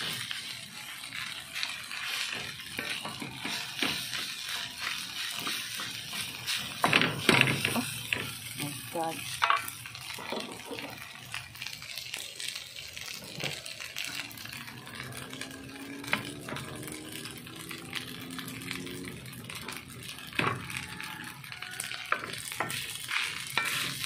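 Wooden spatula scraping and knocking against a metal wok as rice is stir-fried, with a light sizzle under it; a few louder knocks come about seven seconds in. Faint voices can be heard in the background.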